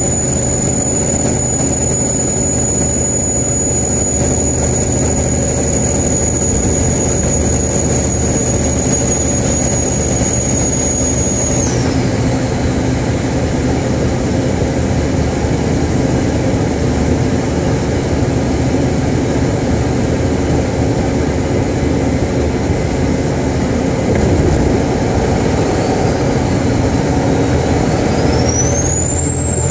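Single-turbo Caterpillar diesel of a 2001 Kenworth truck running, with its turbocharger whistling at a steady high pitch over the engine's rumble. About twelve seconds in the whistle drops away. Near the end it climbs to a peak and falls again as the turbo spools up and back down.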